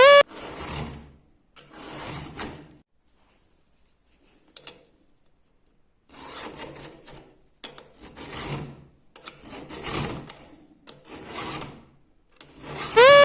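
Chainsaw chain cutters being sharpened with a file: about six rasping strokes, each roughly a second long, with a pause of a few seconds partway through. Near the end a loud, rapidly repeating rising tone cuts in.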